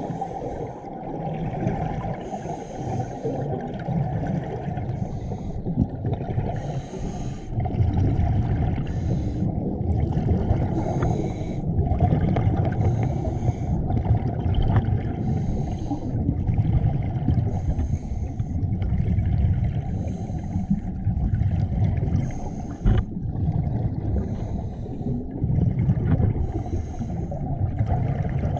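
Scuba diver breathing through a regulator underwater: a hiss on each breath in and a rumble of exhaled bubbles on each breath out, repeating every few seconds.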